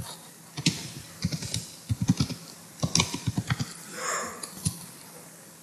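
Typing on a computer keyboard: quick runs of keystrokes with short pauses between them, as an address is entered, ending after about four seconds.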